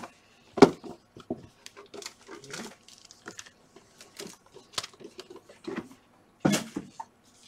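Hands opening and handling a cardboard trading-card box and its foil-wrapped packs: scattered rustles, scrapes and taps, with a louder knock less than a second in and another about six and a half seconds in.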